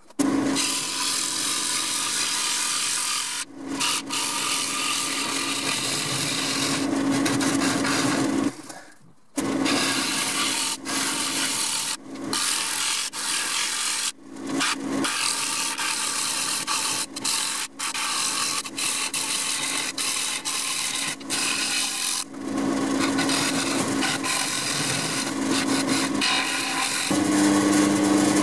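A bowl gouge cutting the inside of a wooden bowl spinning on a Record Power lathe: a steady rushing scrape of shavings coming off, with the lathe's motor humming underneath. The cut breaks off briefly several times, most clearly a few seconds in and about nine seconds in, when the gouge leaves the wood.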